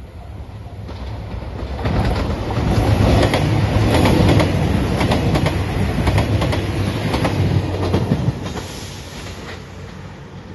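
A train passing at speed. The wheels clatter rapidly over the rail joints, rising to a loud peak for about six seconds, then fading away.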